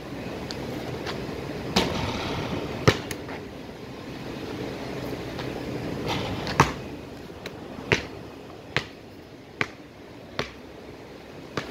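A basketball being shot and bounced: a few sharp knocks as it strikes the hoop, then a run of evenly spaced bounces a little under a second apart near the end, over a steady rushing background.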